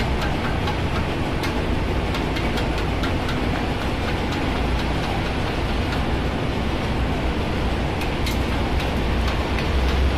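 Steady drone of ship's engine-room machinery, with a strong low hum, dotted with scattered light clicks and knocks.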